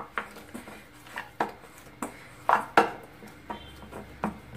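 A stainless steel bowl knocking against the counter as dough is kneaded in it by hand: about six irregular knocks, the loudest two close together a little past halfway.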